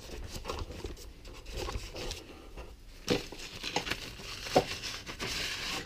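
Brown paper bag crinkling and rustling as it is handled, with a couple of light knocks.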